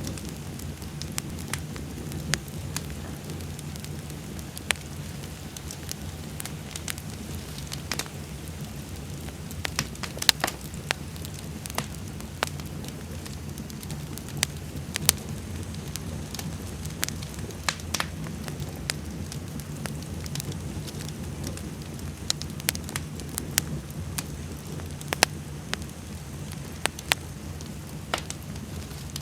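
Fire burning and crackling: a steady low rumble under irregular sharp pops and snaps, several of them a few per second at times.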